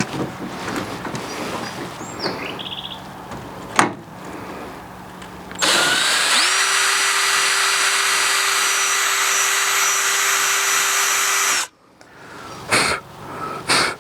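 Electric drill spinning up and running steadily for about six seconds, drilling out a hole that is slightly too small so a bolt will fit, then cutting off abruptly. Sharp handling knocks come a few times before and after it.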